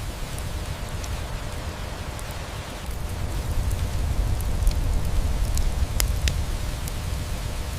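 Steady rain hiss with a low rumble under it, and a wood fire crackling: a few sharp pops scattered through, the loudest about six seconds in.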